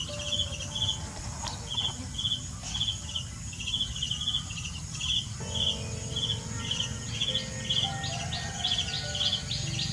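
Insect chirping steadily: short pulsed chirps, high in pitch, about two to three a second. A faster series of short rising chirps joins in about seven seconds in.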